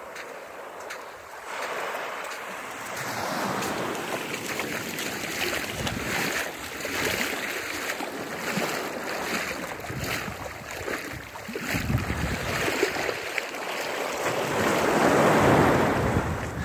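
Atlantic Ocean waves washing and breaking, a rushing that swells and eases several times, loudest about fifteen seconds in.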